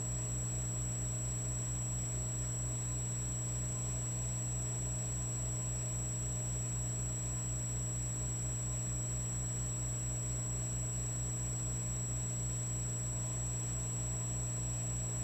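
Electric fireplace logs running: a steady electrical hum with a thin high whine and a fast, even low flutter underneath, unchanging throughout.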